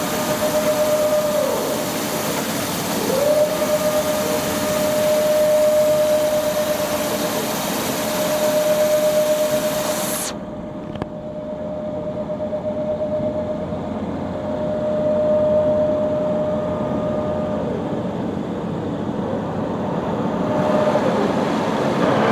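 Scharmann CNC horizontal floor borer running, with a steady high whine over a broad hiss. The whine drops away about a second and a half in and rises back up about a second later. Near the middle, the upper part of the hiss cuts off abruptly while the whine carries on.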